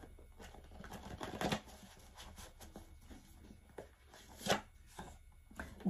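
A deck of tarot cards being shuffled by hand: soft, irregular riffling and flicking of the cards, with two louder snaps about a second and a half in and near four and a half seconds.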